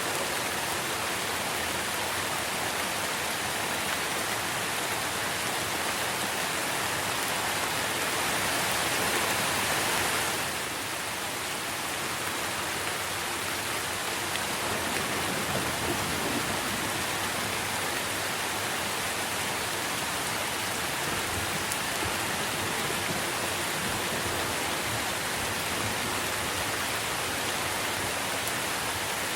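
Steady rain falling on tree leaves, a continuous even hiss that swells a little and then eases slightly about ten seconds in.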